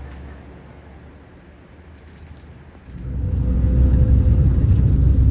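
Low rumble of a moving vehicle that swells sharply about three seconds in, with a brief high chirp just before.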